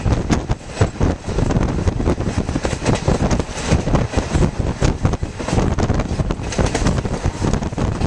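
Wind buffeting the microphone from a passenger train running at speed, in gusty, uneven swells, over the low rumble of the coaches' wheels on the track.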